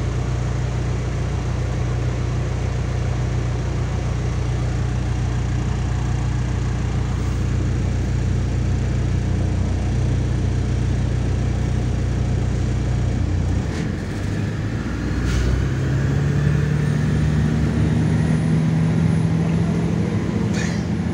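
MAZ-103 city bus engine heard from inside the cabin, idling steadily with a low drone. About two-thirds of the way through it picks up and runs at higher revs as the bus pulls away, its drone rising in pitch.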